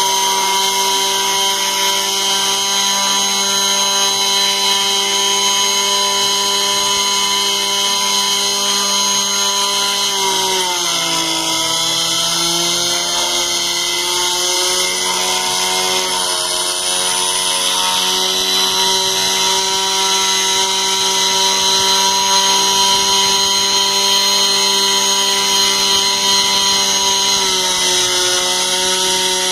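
CNC router spindle running with a small end mill carving wood: a steady whine over the noise of cutting. About ten seconds in its pitch sags and climbs back a few seconds later, and it dips slightly again near the end.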